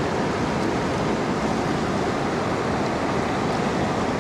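Steady rush of fast, tumbling river water.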